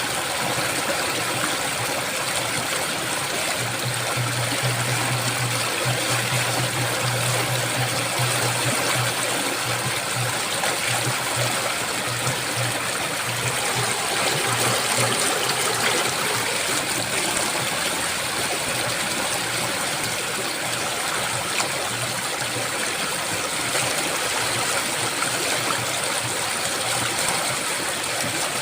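Flowing water of the Ganges rushing steadily, an even hiss with no breaks. A low hum sits under it, strong for the first half and then coming and going.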